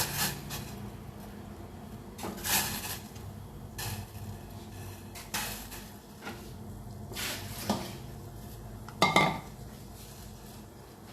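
Metal cookware and utensils clattering in a kitchen: about seven separate clinks and knocks, a second or two apart, with the loudest about nine seconds in.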